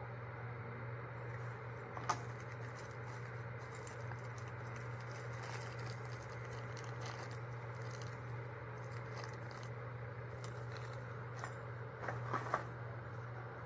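Plastic packaging crinkling and rustling as a wrapped item is handled, with a sharp click about two seconds in and a few more near the end, over a steady low hum.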